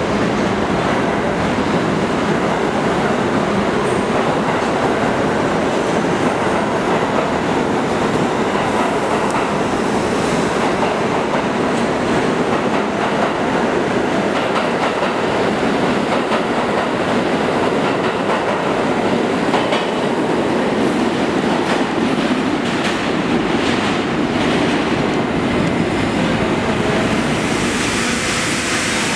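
New York City Subway train of Budd R32 stainless cars running through a station: a steady rumble of wheels and motors, with clicks of the wheels over rail joints in the later part.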